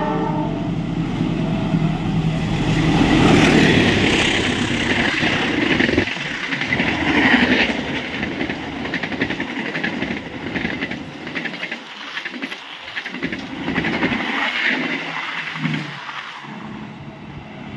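A CC 206 diesel-electric locomotive sounds its horn in the first second, then rushes past at speed with the loudest noise a few seconds in. Its passenger coaches follow, rattling and clicking over the rail joints, and the sound slowly fades.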